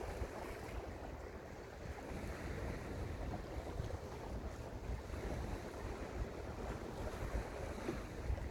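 Wind buffeting the microphone by the sea, a steady low rumble that rises and falls in gusts, with the hiss of waves beneath it.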